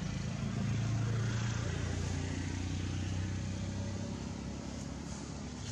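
A motor vehicle's engine running steadily, a low hum that swells slightly about a second in and then eases.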